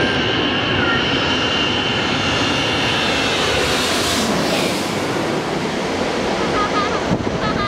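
Twin-engine jet airliner on landing approach passing low overhead: loud, continuous jet engine noise with a high whine, at its fullest as the plane passes about four seconds in, after which the whine drops in pitch as it moves away.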